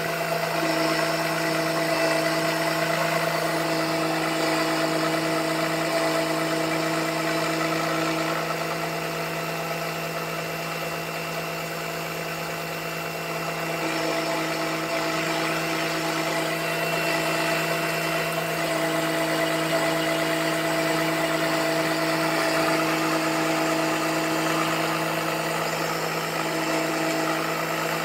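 Small suction pump running steadily with a constant hum, trying to draw engine oil up the dipstick tube. It is not pulling a good vacuum, because the pipes have small holes chewed in them.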